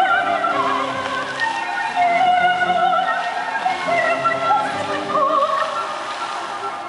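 Operatic classical music: a high melody line with strong vibrato over sustained orchestral accompaniment.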